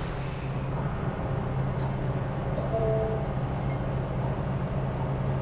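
Steady low machine hum with no letup, with a short two-note tone about three seconds in.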